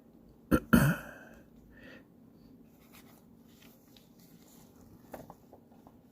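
A person clears their throat with a quick double cough about half a second in. A few faint light clicks follow near the end.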